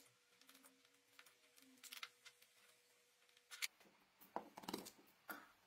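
Faint handling sounds of a wooden handle scale and metal pins against a cleaver's steel blade: quiet scattered clicks, then a run of sharper light knocks and clicks in the second half.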